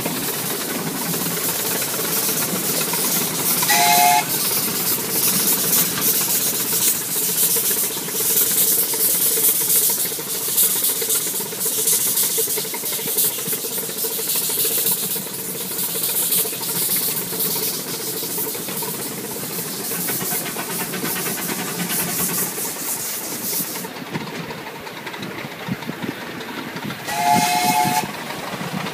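Ride-on miniature steam locomotive running past with steam hissing steadily, its whistle giving two short blasts, one about four seconds in and a longer one near the end.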